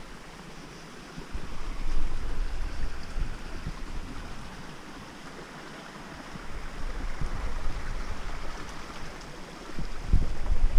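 Wind buffeting the microphone in gusts, low rumbles that come and go three times over a steady rushing hiss.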